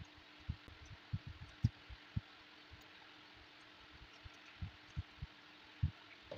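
Irregular soft, dull knocks, in two clusters, as a bottle gourd and kitchen knife are handled against a wooden cutting board while the gourd is peeled, over a faint steady hum.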